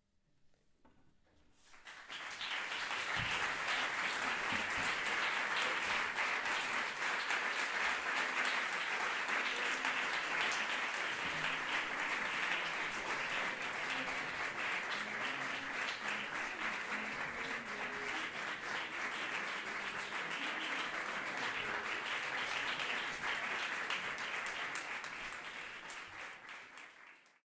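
Audience applauding: the clapping comes in about two seconds in, holds steady, then thins near the end and cuts off suddenly.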